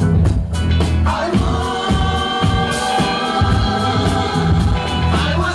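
Loud dance music played by a DJ over the sound system: a heavy, repeating bass beat with sung vocal lines held over it from about a second in.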